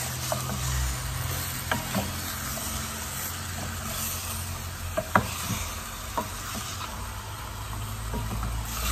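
Pork leg pieces sizzling in hot oil with garlic and onion in a stainless steel pot while being stirred with a spatula, which knocks against the pot a few times, most sharply a little after five seconds in. The meat is being seared before any salt or liquid goes in.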